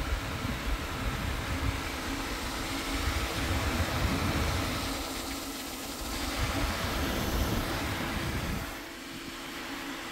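Craftsman V20 compact fan running at speed: a steady rush of air with a faint motor hum, the airflow buffeting the microphone with a low, uneven rumble. The noise eases off about nine seconds in.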